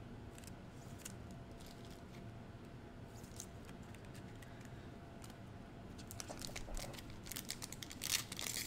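Quiet room tone with a few faint ticks, then from about six seconds in the crinkling of a foil Prizm basketball card pack as fingers pick at its sealed end, growing louder toward the end.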